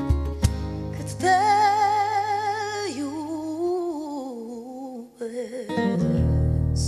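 A woman singing live into a handheld microphone over acoustic guitar and band accompaniment. About a second in she holds a long note with vibrato, then slides into a lower, wavering line that fades out; the band's chords come back fuller near the end.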